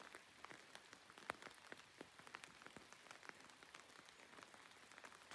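Near silence: faint, irregular ticks and patter scattered over a low hiss.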